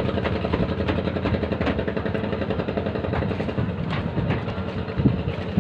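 Boat engine running steadily with a rapid, even chugging.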